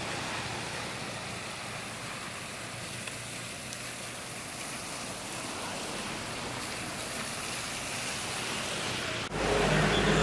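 A pickup truck on fire, heard as a steady rushing, rain-like hiss. About nine seconds in it cuts abruptly to something louder with a steady pitched hum.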